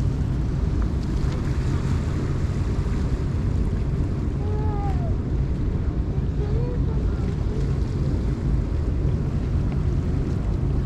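Ferry's engines running with a steady low rumble, with wind blowing on the microphone on the open deck.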